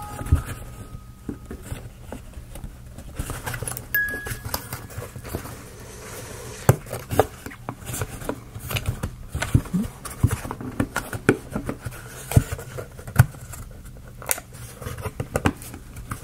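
Thin laser-cut plywood being handled: scattered light clicks and taps as a flexible slatted wooden strip is pressed and worked around a round wooden base.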